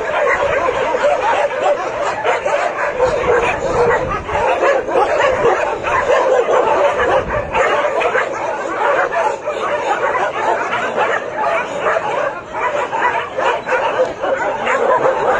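A pack of shelter dogs barking all at once in a continuous, overlapping chorus, with no let-up.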